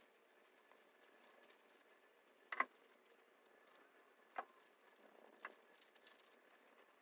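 Near silence: faint room hiss with a few soft, short clicks, the loudest about two and a half seconds in.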